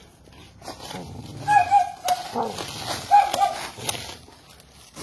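A dog whining in short, high, wavering cries, twice, mixed with a few sharp rustles and clicks.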